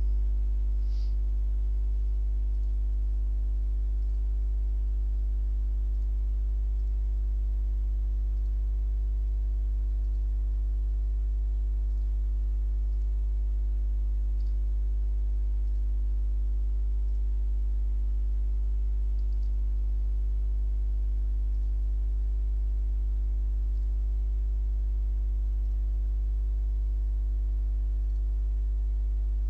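Steady low electrical hum with a stack of constant overtones, like mains hum on the recording line, unchanging throughout, with a few faint ticks.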